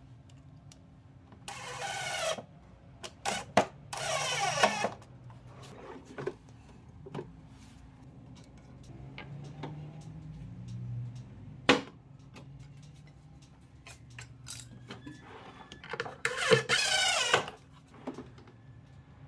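A wooden drawer rolling open and shut on three-stage ball-bearing drawer slides. There are three rolling, rattling runs of about a second each, with light clicks and knocks between them and one sharp knock about twelve seconds in.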